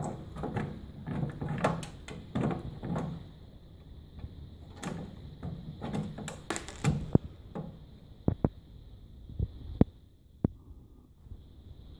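Irregular clicks, knocks and rubbing of an LCD panel and screws being handled and fitted to a plastic printer case, with a few sharper single clicks in the second half.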